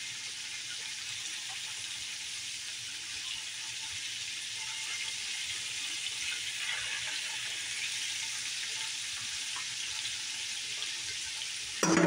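Chicken kabobs deep-frying in hot oil in a stainless steel stockpot: a steady sizzling hiss with light scattered crackles. A short louder sound cuts in at the very end.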